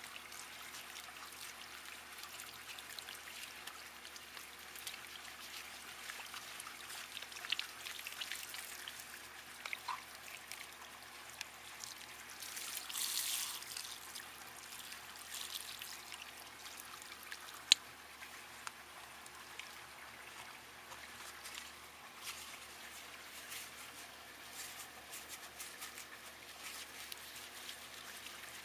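Water running from a garden hose into a fine mesh pond filter sock, rinsing algae out of it, with trickling and splashing on concrete. The flow gets louder for a second or two about halfway through, and a single sharp click comes a few seconds after that.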